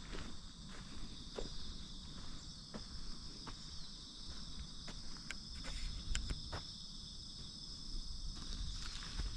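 A steady chorus of crickets and other insects shrilling, with scattered footsteps and small ticks as someone walks.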